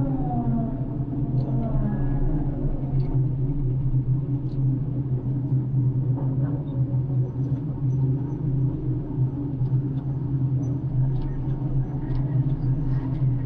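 A floating crane's engine running steadily, heard from the operator's cab, with a low, even drone. A pitched whine falls in pitch during the first second or two.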